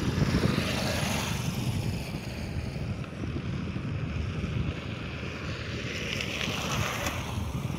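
Steady wind buffeting the microphone, a low rumbling noise with no clear engine note.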